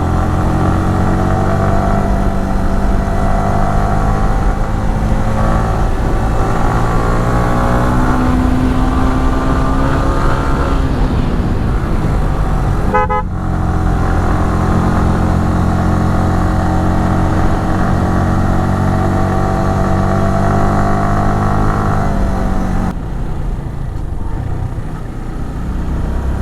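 Yamaha R15 V3's single-cylinder engine running steadily under way, with a brief break in the sound about halfway through, then quieter and lower near the end.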